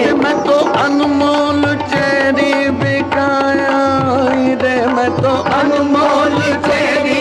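Qawwali instrumental interlude: harmonium holding a sustained melody over a steady tabla rhythm.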